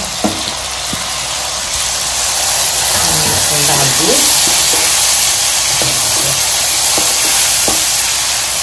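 Chopped tomatoes sizzling in hot oil with browned onion, garlic and ginger in a nonstick kadhai, the sizzle getting louder over the first few seconds as a spatula stirs and scrapes the pan, with a few taps near the start.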